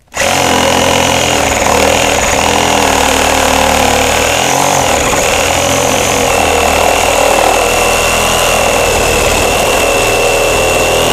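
Reciprocating saw running steadily and cutting down through a wooden 2x4. Its blade reaches a stapled electrical cable near the end, and a steady high whine comes in about halfway through.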